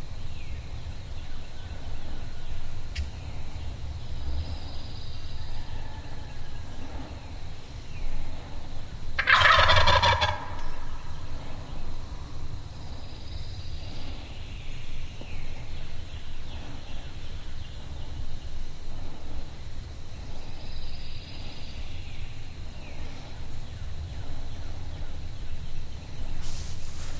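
Wild turkey gobbler gobbling once, loud and close, about nine seconds in; the gobble lasts about a second.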